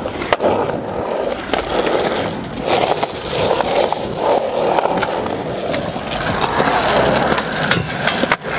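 Skateboard wheels rolling over concrete with a steady rough rumble, broken several times by sharp clacks of the board hitting the ground.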